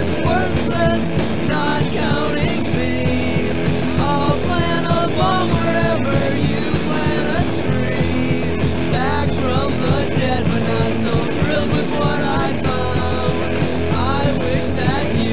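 Rock band recording with a voice singing over a steady, full band backing.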